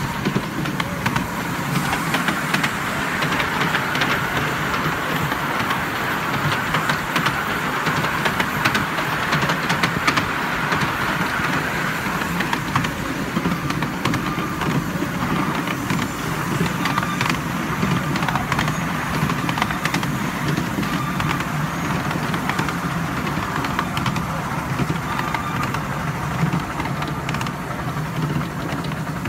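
Miniature railway train running on 7¼-inch gauge track: a steady rumble of wheels on rail with many small clicks and rattles throughout.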